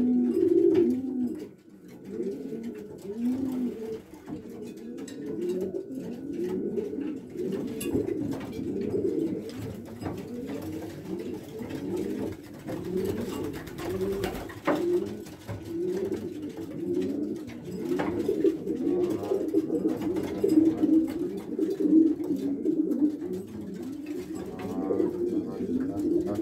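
Racing pigeons cooing continuously, many overlapping rolling coos. A brief clatter of wings about halfway through.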